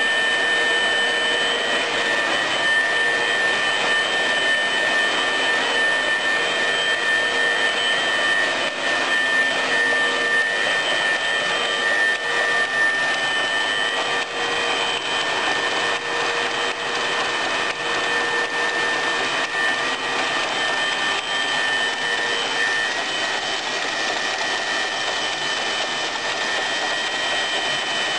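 Welding electrode wire cutting machine running steadily: an even mechanical hiss with a few high-pitched held tones over it.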